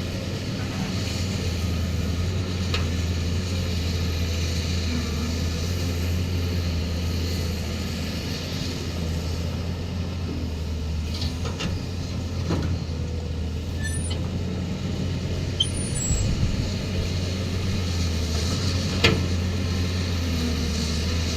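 Cat 320 excavator's diesel engine running steadily, with a few short sharp knocks from the machine at work.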